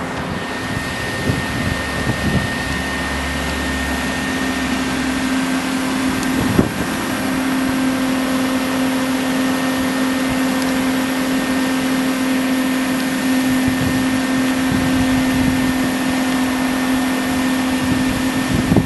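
Everlast 205 plasma cutter's cooling fan running at idle, a steady whirring hum with a held tone. A single brief knock about six and a half seconds in.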